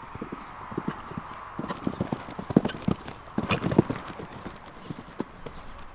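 Hoofbeats of a horse cantering on sand arena footing: a run of dull thuds in quick groups, loudest from about two and a half to four seconds in as the horse passes close.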